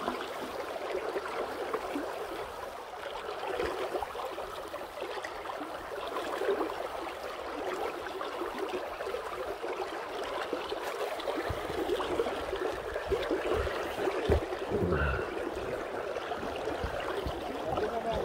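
River current rushing and gurgling steadily, with a few low bumps about two-thirds of the way through.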